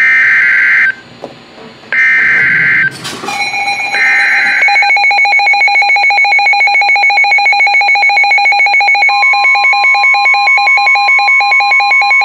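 Emergency Alert System SAME header: three bursts of screeching digital data about a second apart, opening a new weather radio alert. A rapidly pulsing electronic alarm tone starts partway through the bursts, and a steady alarm tone joins it near the end.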